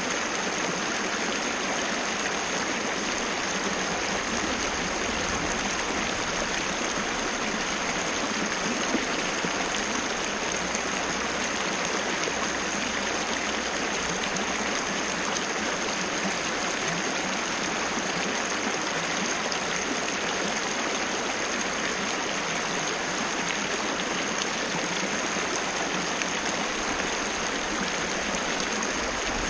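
Small waterfall splashing and running steadily, a constant even rush of falling water.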